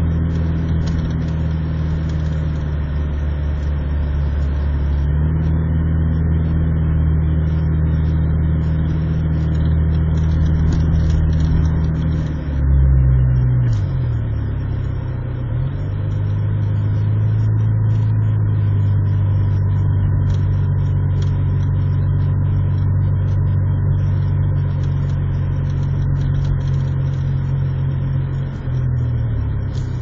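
Honda Civic EJ1 coupe's engine heard from inside the cabin while driving at about 40 mph: a steady low engine hum over road noise. Its pitch dips and wavers about 12 to 15 seconds in and again near the end.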